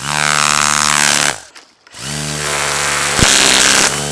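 Battery-powered string trimmer running at full speed, cutting weeds. It spins up, cuts off after about a second, starts again and runs on, with one sharp knock about three seconds in.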